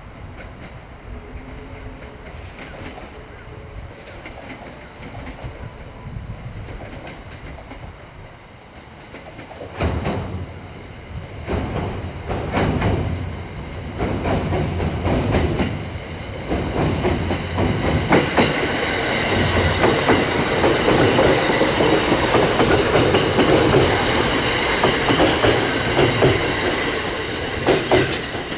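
681 series electric train running into a station. It is quiet at first, then from about ten seconds in the wheels clatter over rail joints and grow louder, with several steady whining tones over the clatter as it comes alongside.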